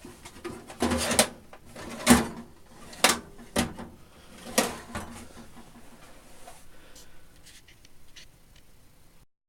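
Tool box drawers being slid and knocked open and shut: about five loud knocks and scrapes in the first five seconds, the first a short slide, then a few quieter small clunks.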